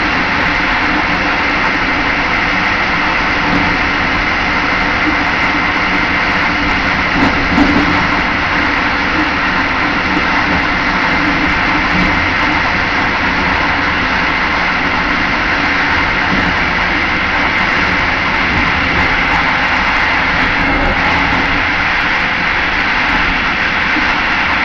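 Steady running noise of a moving passenger train, heard inside its last carriage: the wheels rolling on the rails. There is a short louder bump about seven and a half seconds in.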